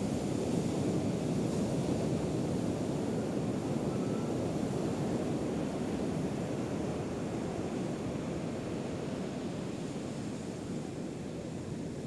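Ocean surf breaking and washing up the beach: a steady rush, with some wind on the microphone.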